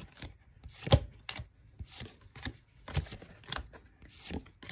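Pokémon trading cards being slid from the back of a hand-held stack to the front one at a time: an irregular series of short papery swipes and flicks, roughly two a second, the sharpest about a second in.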